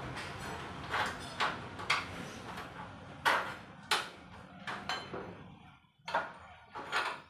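About a dozen short knocks and scrapes at uneven intervals, as from hand-work with a tool or material, over a low steady hum that drops away near the end.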